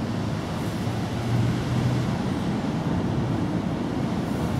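Steady low rumble of outdoor background noise.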